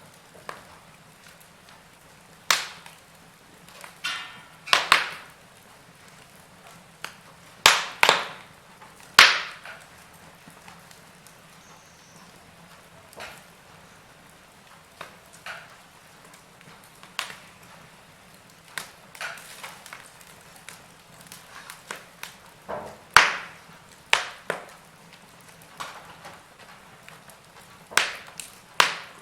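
Fire in a fireplace crackling: irregular sharp pops and snaps, several of them much louder, over a faint steady low hiss.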